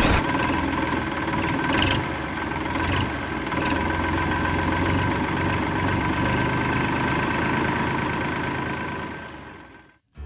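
Engine running steadily with a low rumble and a few short clanks, fading out just before the end.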